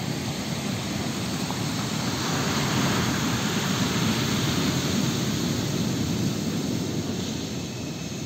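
Ocean surf: a steady rush of breaking waves, swelling a few seconds in and easing off toward the end.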